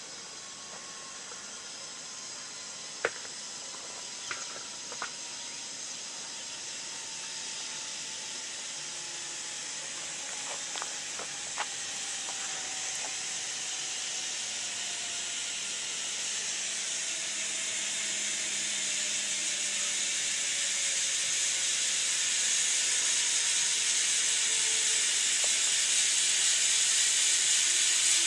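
Zip-line trolley running down the steel cable: a steady hiss that grows steadily louder as the rider approaches, with a faint whine that slowly falls in pitch. A few sharp clicks come in the first half.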